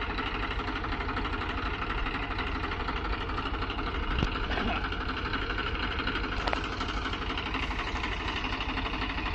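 Tractor diesel engine running steadily at idle, with two short clicks about four seconds in and again a couple of seconds later.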